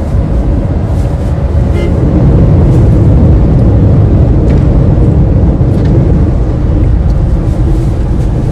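Steady low rumble of a moving road vehicle, getting a little louder about two and a half seconds in.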